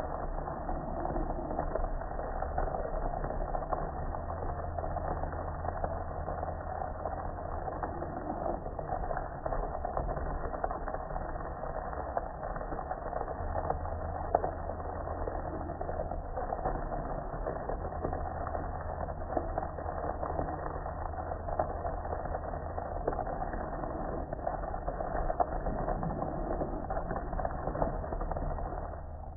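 Steady spray of soapy water splattering onto a metal gas grill, stopping just before the end.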